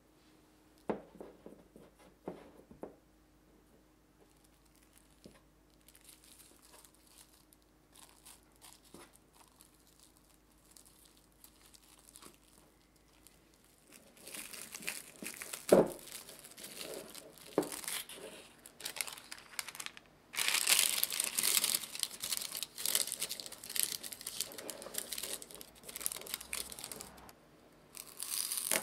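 Faint taps of tart dough being pressed and trimmed in a metal fluted tart pan, then plastic cling film crinkling and tearing as it is stretched over the pan, with one sharp knock partway through. In the last third comes a longer spell of louder crinkling, as paper is crumpled and pressed into the tart shell as a lining.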